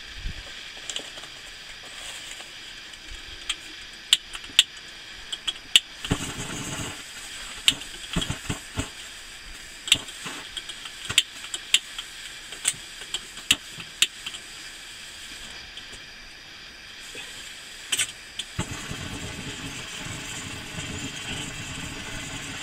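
A string of sharp clicks from a long-reach lighter's igniter, over a faint steady hiss. Near the end the M1950 pressure stove's burner catches and burns with a low roar of flame that keeps going.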